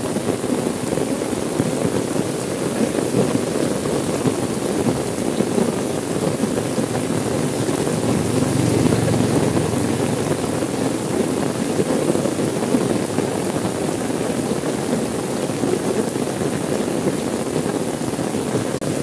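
Heavy rain falling steadily on a car's windows and roof, heard from inside the car as an even hiss that swells a little about halfway.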